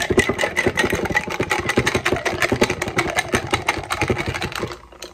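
Ice cubes rattling and clinking against a tall drinking glass as a drink is stirred fast with a stirrer. The quick clinks run in a rapid rhythm and stop just before the end.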